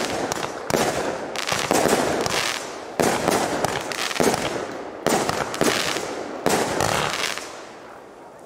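Jorge Nibiru (JW2035) fireworks battery firing: a sharp bang about every second or so as each shell bursts, followed by a dense crackle of stars that fades. The crackle dies away near the end.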